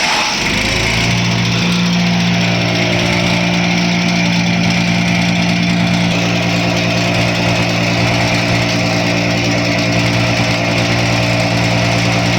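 Wood chipper's engine running steadily at speed. The pitch sags briefly right at the start and recovers within about a second, then holds steady.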